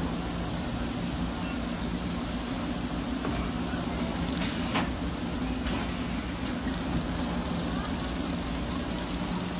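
Steady industrial machine hum with a short burst of hissing air a little past the middle, set off by sharp clicks just before and after it.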